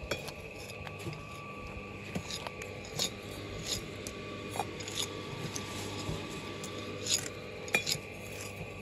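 Scattered light clinks and scrapes of bricklaying: bricks and hand tools knocking and scraping against each other, at irregular intervals over a faint steady hum.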